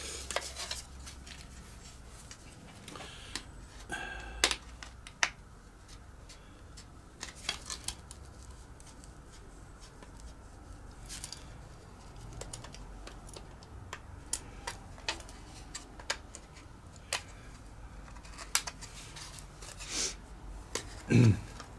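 Curved scissors cutting through thin plastic moulding: scattered sharp snips and clicks at irregular intervals. A brief voice sound near the end.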